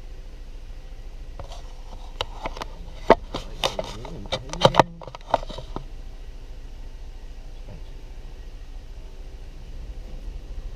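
Steady low rumble of a slow-moving car heard from inside the cabin, with a run of sharp clicks and taps for a few seconds in the middle.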